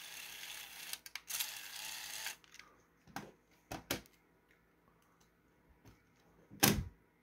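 Handling sounds from a 3D-printed plastic toy and its small remote control: a soft steady rustle for the first two seconds, then a few light plastic clicks, and one louder knock near the end as something is set down on the workbench.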